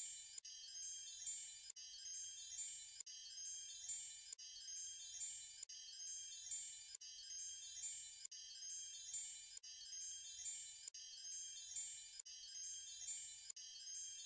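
Background track of high, tinkling chimes, repeating as an even loop about every second and a third.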